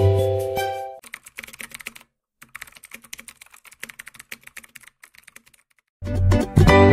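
The tail of a bright musical jingle fades in the first second, then a rapid, irregular clatter of keyboard typing clicks runs for about four seconds: a typing sound effect. A new music track comes in near the end.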